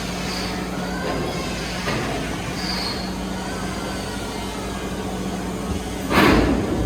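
Sawmill machinery running with a steady hum and faint squeals that rise and fall, then a loud burst of noise lasting about half a second near the end.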